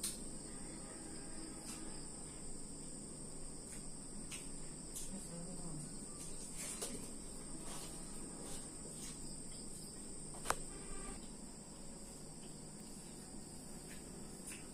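Steady high chirring of crickets, with faint soft sounds of a hand mixing rice in a metal bowl and one sharp click about two-thirds of the way through.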